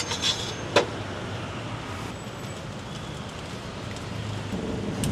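Steady hum of road traffic, with a couple of sharp clacks in the first second and an engine growing louder near the end.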